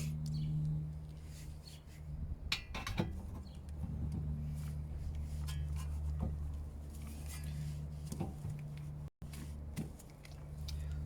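Metal parts and tools clinking and knocking now and then over a steady low hum.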